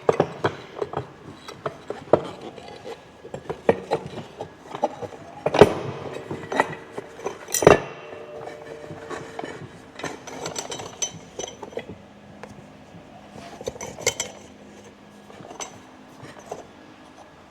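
Metal parts clinking and knocking together as the drive clutch, pulleys and belt are fitted by hand, with scattered sharp clanks; the loudest two come about five and a half and seven and a half seconds in, one leaving a brief ring.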